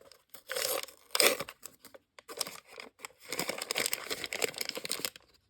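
Blind-bag packaging crinkling and tearing as it is opened, in several short bursts, then a longer stretch of rustling.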